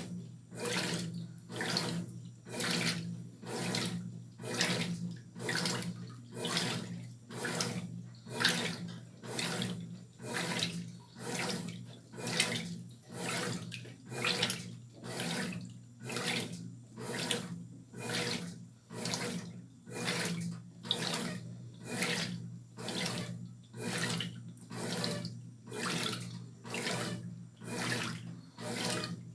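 Brastemp Tira Manchas Pro 12 kg top-loading washing machine agitating a load in water: even, repeated swishes of water, about three every two seconds, over a steady motor hum, as the drum's agitator reverses back and forth in the wash stage.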